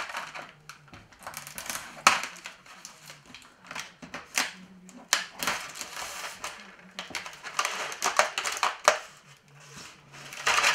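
Thin plastic parts trays holding small model fittings being lifted and shifted in a cardboard box: irregular rustling and crackling with a few sharp knocks and clatters.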